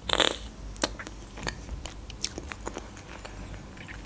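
A bite cracking through the chocolate coating of an ice cream bar, loudest in the first half second. It is followed by scattered soft crunches and mouth clicks of chewing.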